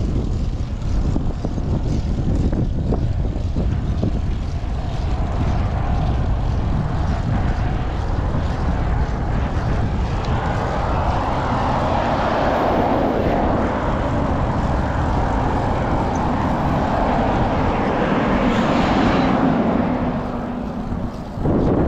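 Strong headwind buffeting the microphone of a cyclist riding uphill: a continuous rushing, rumbling noise that swells around the middle and again near the end.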